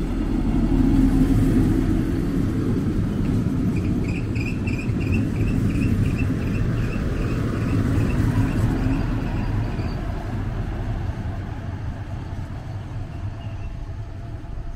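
DB class 643 (Bombardier Talent) diesel railcar running into the station and rolling slowly past: diesel engine and wheel rumble, with a high tone pulsing about three times a second from about four to ten seconds in. The rumble fades as the train draws away.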